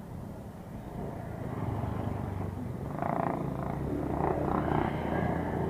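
Motorcycle engine idling steadily, with louder indistinct sounds laid over it from about three seconds in.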